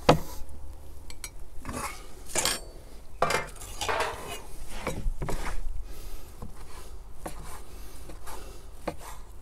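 Metal kitchen utensils knocking and clattering on a wooden cutting board and dishes, with one sharp knock at the start as a spoon sets a piece of cooked beef on the board. Near the end there are light knife clicks as a cleaver begins slicing the beef on the wooden board.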